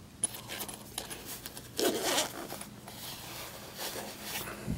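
Zipper on a soft padded carrying case being pulled open in a few rasping runs, loudest about two seconds in, followed by quieter fabric rustling as the case is handled.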